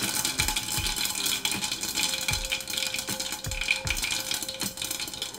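Mustard seeds popping in hot oil under a glass pot lid: irregular sharp ticks and taps against the lid, roughly two a second, over a sizzle.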